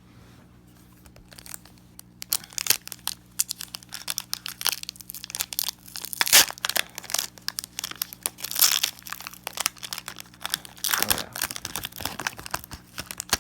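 Foil wrapper of a Pokémon card booster pack being torn open and crinkled: dense, irregular crackling with a few louder crinkles.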